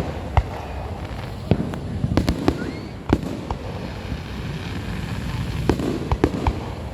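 Fireworks going off: a string of sharp bangs and pops at irregular intervals, in two clusters about two seconds in and near the end, over a steady rumble.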